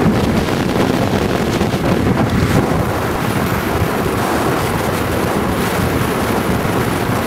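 Wind rushing and buffeting through an open window of a car moving at road speed, with road noise underneath; a steady, loud rush.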